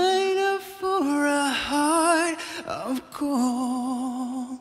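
A man singing slow, held notes with vibrato, with a short break for breath about halfway through.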